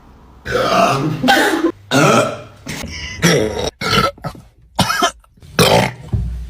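A person burping loudly over and over, about seven separate burps of varying length in quick succession, brought up by gulping carbonated Sprite.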